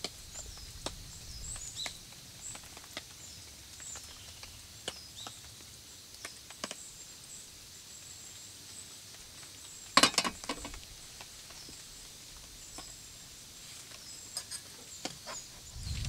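Quiet outdoor ambience: faint high chirps of birds and scattered light clicks and taps, with a brief louder clatter of clicks about ten seconds in.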